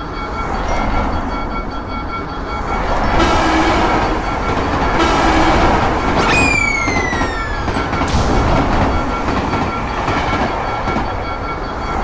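A passenger train running through a level crossing, its rumble swelling in the middle, over the steady fast ringing of the crossing bell. About six seconds in the train's horn sounds once for a second or two, falling in pitch as it passes.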